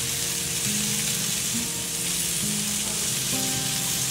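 Bacon-wrapped quail, freshly glazed with jalapeño pepper jelly, sizzling steadily on the grate of a charcoal kamado grill. Held low musical notes that change about once a second play underneath.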